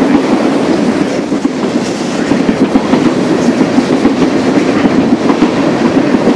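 Freight train of tank cars rolling along the track: a steady rumble of wheels on rail with frequent short, sharp clicks.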